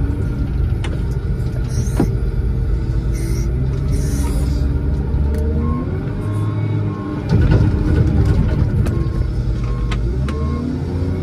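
Diesel engine of a Case 621E wheel loader running as the loader drives, heard from inside the cab. About seven seconds in, the engine briefly dips, then revs up and gets louder.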